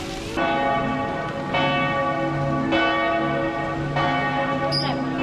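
Bells ringing, struck about once a second, each stroke ringing on into the next.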